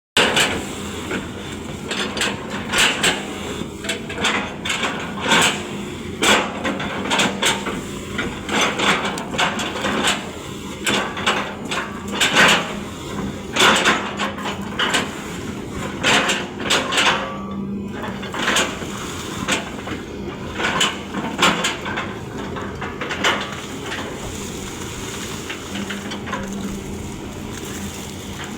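Excavator working: irregular knocks and clatter, about one or two a second, over a steady engine hum. The knocks thin out near the end.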